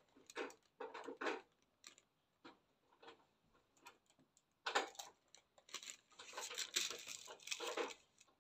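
Silicone spatula scraping thick macaron batter from a mixing bowl into a plastic piping bag: soft, irregular scrapes and plastic rustling, with one sharper tap a little past the middle.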